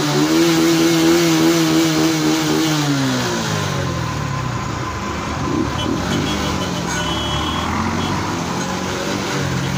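Engines of a tractor and motorcycle convoy: one engine revs up and holds its pitch, then winds down about three seconds in, leaving steady engine running and road noise, with the pitched engine note coming back near the end.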